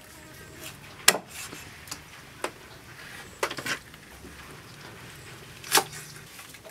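A meat cleaver chopping through a raw chicken into a wooden chopping block, with one sharp chop about a second in. Several lighter knocks and clatters follow.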